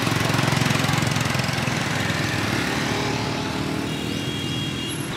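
Small motor scooter engines running as they pass close by, a buzzing hum that is loudest at first and then eases off as they move away.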